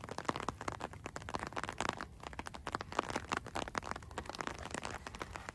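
Raindrops of a light rain tapping on an open umbrella held overhead: a dense, irregular run of small taps.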